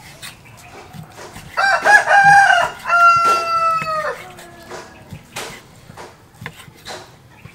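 A rooster crows once, starting about a second and a half in: one long call of about two and a half seconds in two parts, the second part held level before dropping at the end. Under and around it, a large kitchen knife ticks and taps as it slices raw beef chunks on a wooden chopping board.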